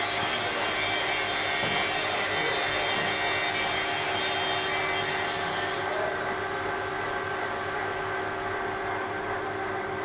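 CNC machine running with a steady hiss and hum and several steady tones. About six seconds in the high hiss cuts off suddenly, leaving the lower machine hum.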